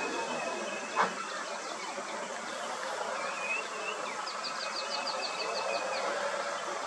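Outdoor ambience of buzzing and whining insects, with a fast chirping trill of about eight ticks a second near the middle. A single sharp knock about a second in is the loudest sound.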